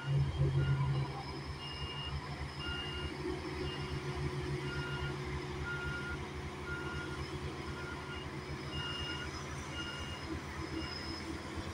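Hamm tandem vibratory road roller running, its diesel drone carrying a fast, even low pulsing from the vibrating drums, loudest in the first second. A reversing alarm beeps on and off throughout, at two alternating pitches.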